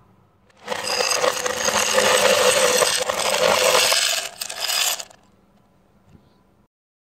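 Loose brass pistol cartridges pouring into an ammo can, a dense metallic jangle that starts about a second in, dips briefly and stops about five seconds in.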